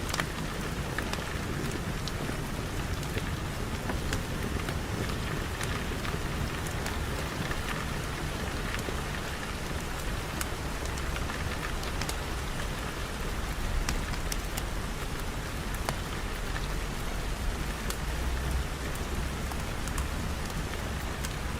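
Steady rain falling, with scattered sharp ticks throughout and a low rumble that swells briefly in the second half.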